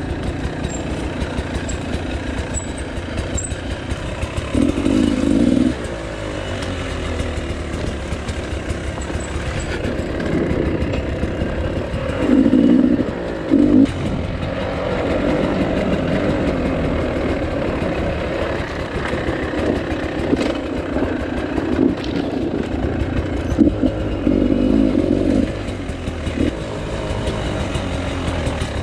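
Beta 300RR two-stroke dirt bike engine running under way. It gets louder in short surges of throttle about five seconds in, twice around twelve to fourteen seconds, and again about twenty-four seconds in.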